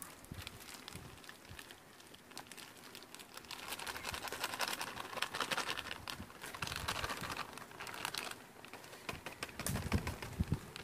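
Plastic ragi flour packet crinkling in the hands while finger millet flour is shaken out of it into a pot: a dense patter of small crackles, busiest in the middle.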